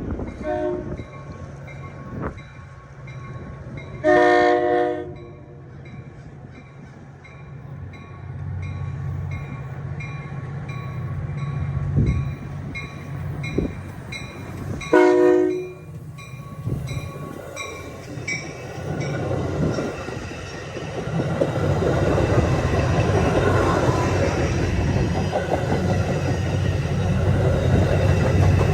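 Metra commuter train at a station stop: a bell dings steadily over a diesel hum. Two short horn blasts sound about eleven seconds apart, then the train's rumble and clatter build as it pulls through.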